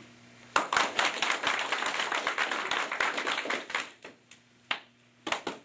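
Audience applauding, breaking out suddenly about half a second in and dying away near four seconds, then starting up again near the end.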